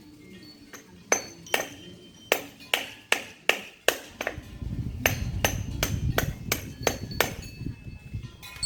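A series of sharp metallic strikes, roughly two a second, each leaving a short ring, with a low rumble joining about halfway through.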